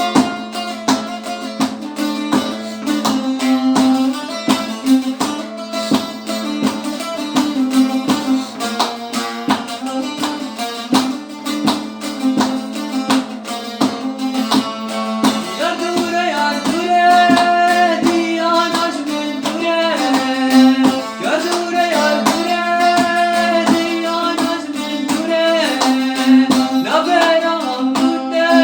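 Kurdish song: a plucked string instrument plays quick notes over a steady drone, and a voice starts singing about halfway through.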